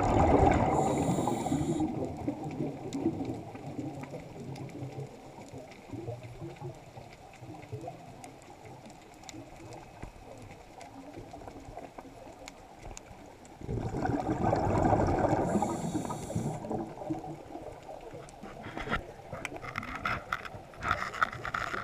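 Scuba diver's exhaled breath bubbling out of the regulator, heard underwater: two long bursts of bubbles, one at the start and one about 14 seconds later, with a low steady underwater hiss between them and faint clicking near the end.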